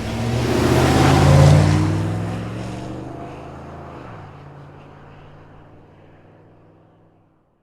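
A motor vehicle's engine running, swelling to its loudest about a second and a half in, dropping in pitch around four seconds in, then fading away to silence.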